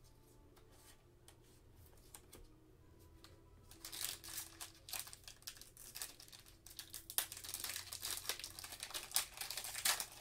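A trading-card pack's plastic-foil wrapper crinkling and being torn open by hand. It starts about four seconds in, after faint clicks of cards being handled, and crackles densely until near the end.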